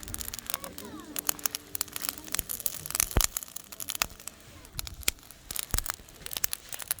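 Wood campfire crackling and popping as clams grill on it: irregular sharp snaps and clicks, with the loudest pop about three seconds in.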